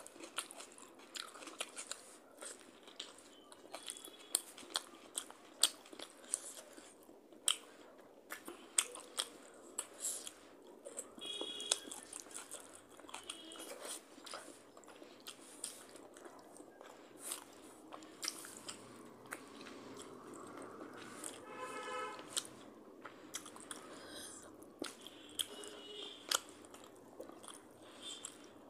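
Close-miked chewing and mouth sounds of rice and chicken curry being eaten by hand: wet lip smacks and frequent sharp clicks, with one brief pitched sound about two-thirds of the way through.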